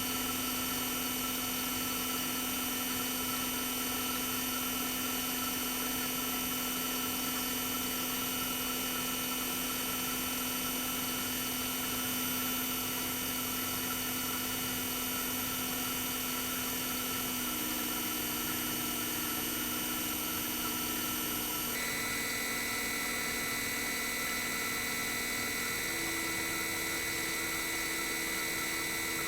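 Toshiba DA91A1F-42F twin rotary inverter compressor running steadily with a whine made of several high, steady tones. The whine steps to new pitches about two-thirds of the way in and again near the end, as the inverter changes the compressor speed.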